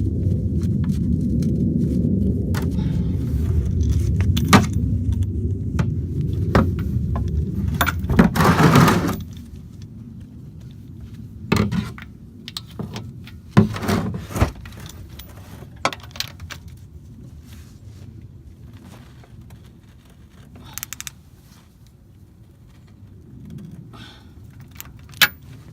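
Scattered metallic clinks and knocks of tools and parts being handled while working on the car, over a low rumble that drops away about nine seconds in.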